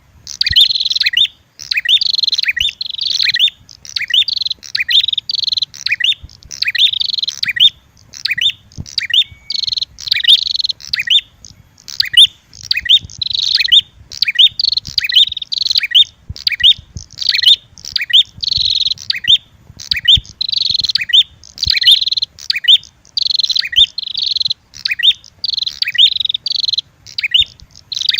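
Bird-lure recording of prenjak (prinia) calls, a red-headed prenjak mixed with a female prenjak's agitated fighting calls. Loud, rapid, high-pitched chirps and trills follow one another with hardly a pause.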